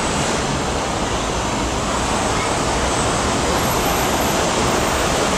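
MTR K-Train electric train approaching along the elevated track: a steady rumble of wheels and motors on the rails, slowly growing louder.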